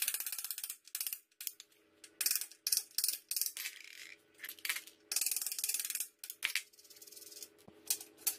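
A hammer rapidly tapping a metal drift on a bicycle's bottom-bracket spindle at the start, then metal tools and loose parts clinking and scraping in short bursts. Faint background music runs underneath.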